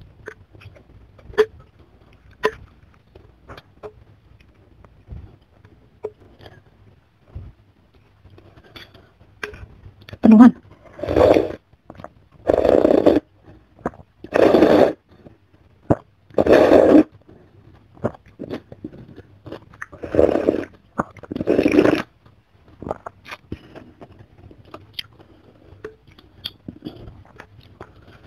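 Metal spoon and fork clinking and scraping against a bowl as soto ayam with noodles is stirred, in scattered sharp clicks. About ten seconds in, a run of about six louder, rushing sounds close to the microphone, each about a second long, ends some six seconds before the close.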